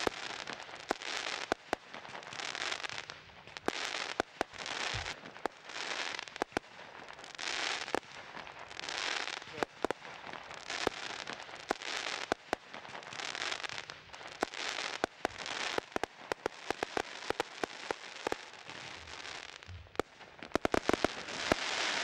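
Ghengis Fireworks' 37-shot Surgical Strike firework cake firing its barrage: shot after shot, each a crack followed by a crackling hiss, coming about every second and a half. Near the end a rapid cluster of sharp bangs goes off.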